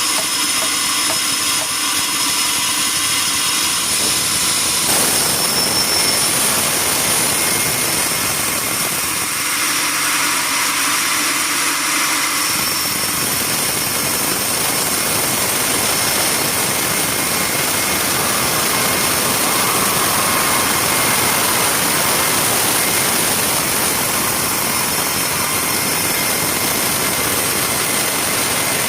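Sawmill machinery running with a loud, steady mechanical noise, changing character abruptly about five seconds in and again about twelve seconds in.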